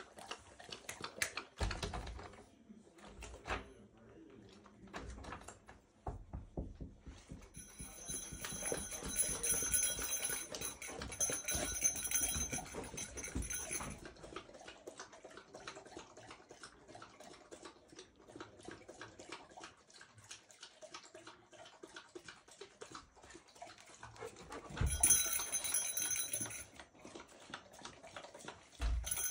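A large dog lapping water from a steel bowl, a fast, continuous run of wet laps and small clicks. A high, thin whine comes in twice, for several seconds each time.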